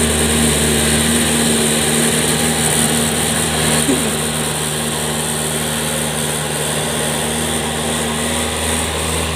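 Mahindra MM640DP jeep's engine running at steady revs as the jeep crawls through deep mud.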